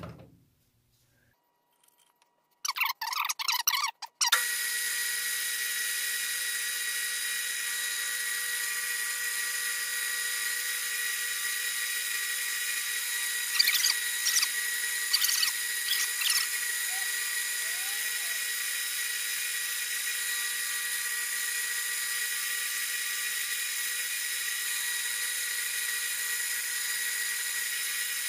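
Metal lathe starting with a brief clatter about three seconds in, then running with a steady high-pitched whine while a threading tool cuts threads on a half-inch rod; a few sharp scraping sounds come in the middle as the insert takes its cut.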